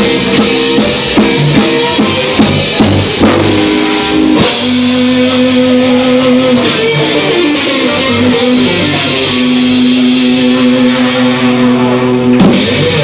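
Live rock band (electric guitar, bass guitar and drum kit) playing loud through amplifiers. About four seconds in the drum beat drops out and the band holds long sustained notes, then a sharp final hit near the end: the close of a song.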